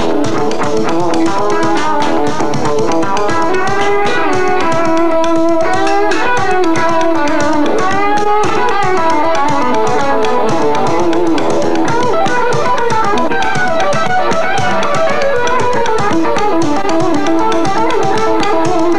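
Electric guitar, a worn Strat-style guitar with two humbuckers and a single-coil, improvising a melodic lead line with bent, gliding notes, over light tapping percussion.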